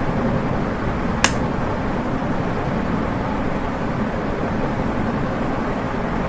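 Ventar Windsor ceiling fan running, a steady low hum with a rush of moving air, and a single sharp click about a second in.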